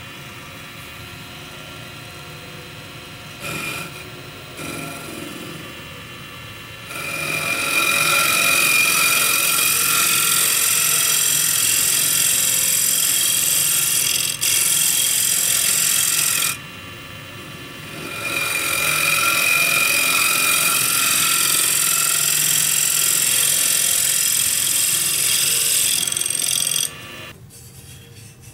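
Wood lathe running with a scraper cutting a spinning sycamore bowl: a couple of brief touches, then two long stretches of loud scraping with a short pause between them. The lathe shuts off near the end.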